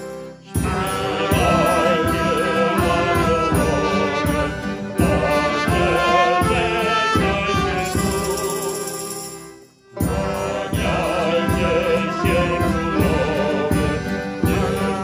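Polish courtyard-band (kapela podwórkowa) music with group singing over a steady beat. It breaks off briefly about half a second in and again near ten seconds.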